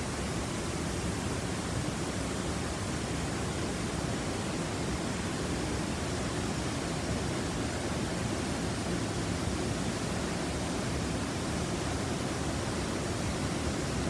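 Waterfall pouring into a rocky plunge pool: a steady, unbroken rush of falling and churning water.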